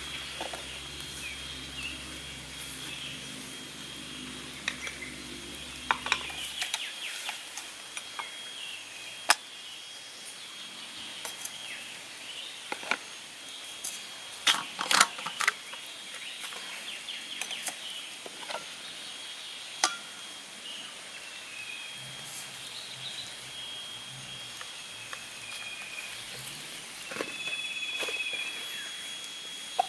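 Steady high-pitched chirring of insects, with scattered clicks and knocks of coffee-brewing gear being handled and set down, the loudest cluster about halfway through. A low hum underneath stops about six and a half seconds in.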